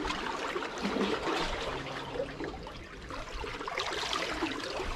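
Seawater trickling and lapping among the rocks of a narrow gully: a steady wash with many small splashes.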